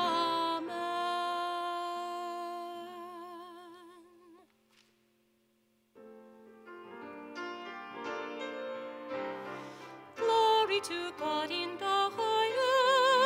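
A solo singer with vibrato holds a final note over piano, fading out about four seconds in. After a moment of silence, a grand piano starts an introduction, and about four seconds later the singer comes back in with the piano.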